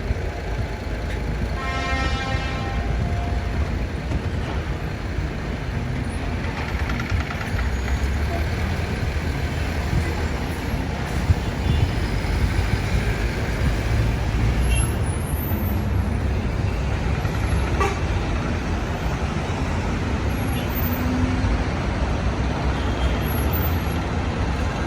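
City street traffic: engines and tyres of passing cars, buses and trucks. A vehicle horn sounds briefly about two seconds in.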